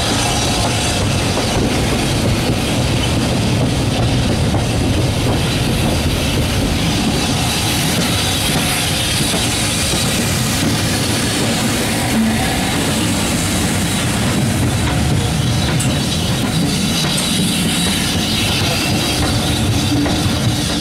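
Heritage railway coach running on jointed track, heard at an open window: a steady rumble and clatter of wheels on the rails, with a faint squeal from the wheels.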